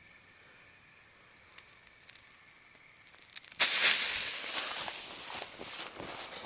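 Fuse of a 200-gram consumer firework cake catching about three and a half seconds in and hissing and spitting, loudest at the start and then slowly easing off.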